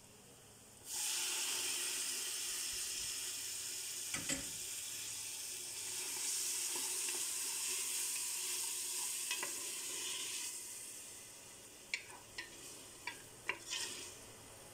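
Chopped tomatoes dropped into hot butter in an aluminium pot, sizzling loudly from about a second in and dying down after about ten seconds. Near the end a wooden spoon stirring knocks and scrapes against the pot a few times.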